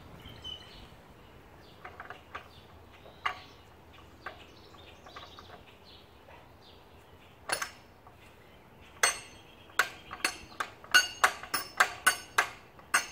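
Sharp metallic clicks and clinks as a chisel bit is fitted into the chuck of a Makita electric jackhammer that is not running. A few scattered clicks come first, then a quick run of louder, ringing metal clinks in the last four seconds.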